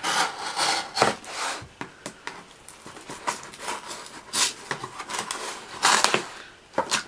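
Benchmade Mini Griptilian folding knife sawing and slicing through a cardboard box, in irregular scraping strokes with a few louder rasps.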